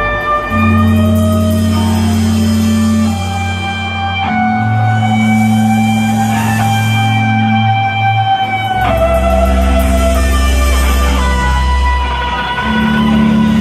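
Live rock band playing an intro jam: electric guitar and bass hold long sustained notes, the chord shifting every few seconds, with no drums.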